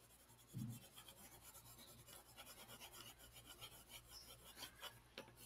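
Faint scratching of a graphite pencil shading on paper, a rapid run of short back-and-forth strokes, about six a second, from about two seconds in.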